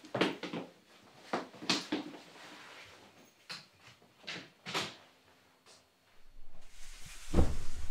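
Household handling noises: a series of separate knocks and clicks from a door being opened and closed and someone moving through it. Near the end there is a rising rush of noise with a heavy low thump.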